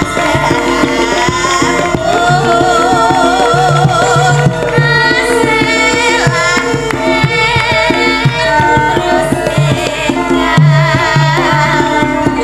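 A Javanese sinden (female singer) singing a melismatic line with vibrato, amplified through a microphone, over a band with Javanese hand drums (kendang) keeping a steady pattern.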